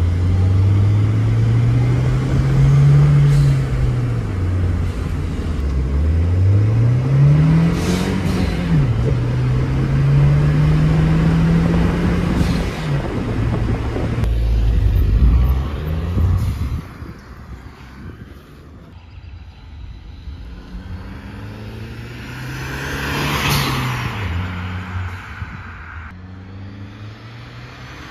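VW Passat 1.8T turbocharged four-cylinder on its stock exhaust, heard from inside the cabin, accelerating through the gears, the engine pitch climbing and dropping at each shift, with a short turbo blow-off valve whoosh at the gear changes, about three in all. About two-thirds of the way in it turns quieter, and the car is heard from the roadside as it passes, swelling and fading.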